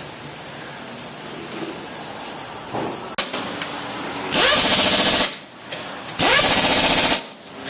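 Pneumatic impact wrench run in two bursts of about a second each, each spinning up with a rising whine and then rattling. A sharp click comes a little before the first burst.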